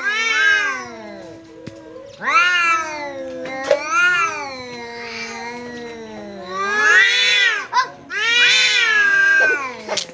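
Two domestic cats caterwauling at each other in a territorial standoff: long, wavering yowls that rise and fall in pitch. A low, drawn-out yowl runs underneath louder, higher wails that swell about five times. This is threat calling between rival cats, with no fighting contact.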